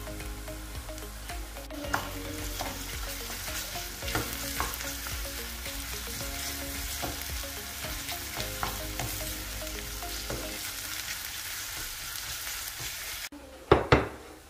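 Diced onion, green pepper and tomato paste sizzling in a nonstick frying pan while a wooden spoon stirs and scrapes the pan with small clicks. Near the end the sizzling cuts off and two sharp knocks follow, as a ceramic bowl is set down on a table.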